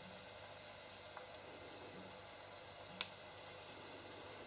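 Piped churro dough frying in an electric deep fat fryer's oil at 150 degrees: a faint, steady sizzle. One sharp click of the scissors about three seconds in.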